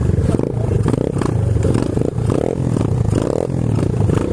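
Small single-cylinder pit bike engines running at low revs as the bikes roll slowly along a dirt trail, with rattling clatter from the bikes.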